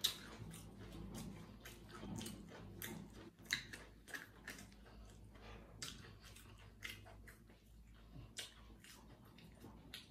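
Close-miked chewing of ketchup-coated galeta (oven-dried bread bites): faint, soft wet mouth clicks and smacks, scattered and irregular.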